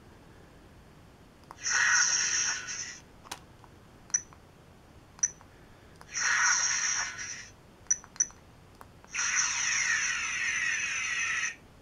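Star Trek TNG Type 1 'cricket' phaser replica playing its electronic phaser sound effects through its small built-in speaker: three high-pitched firing bursts, the last and longest with a sweeping warble, with short beeps from button presses in between.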